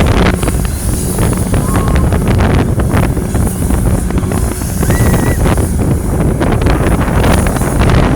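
Wind buffeting the microphone of a camera riding a spinning Hurricane carnival ride, over the ride's steady low rumble, with scattered rattles and clicks.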